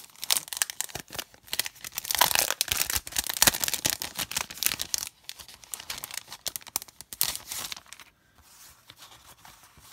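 Clear plastic cellophane packaging crinkling and crackling as it is pulled open and handled, loudest in the first half and dying down near the end.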